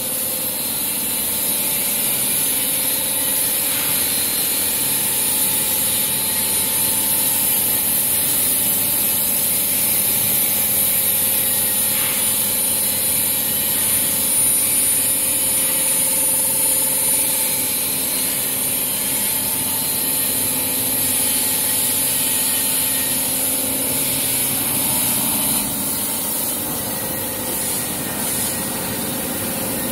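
Meltblown nonwoven fabric production line running: a steady hiss with a low machine hum underneath.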